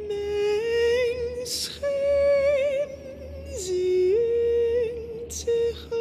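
A lone voice singing long, wordless held notes that step up and down with a slight waver, with short breaths between phrases, over a faint low hum.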